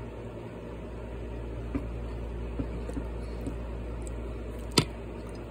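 Crunchy peanut butter cereal (Cap'n Crunch's Peanut Butter Crunch) being chewed with the mouth closed: a few faint crunches and one sharper, louder click near the end, over a steady background hum.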